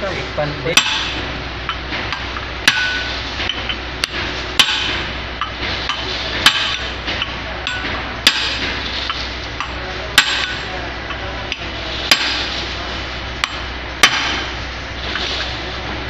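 Hammer blows on metal, one about every two seconds with a few lighter taps between, knocking on parts of a Kawasaki NV270 hydraulic main pump's drive shaft assembly as the pump is dismantled.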